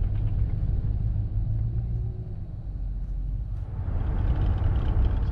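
Road noise inside a moving car's cabin: a steady low rumble with tyre and wind hiss, the hiss growing louder over the last couple of seconds.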